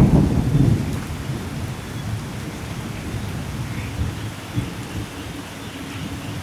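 Thunderstorm: a loud low thunder rumble at the start that dies away over the first couple of seconds, then quieter rumbling under steady rainfall.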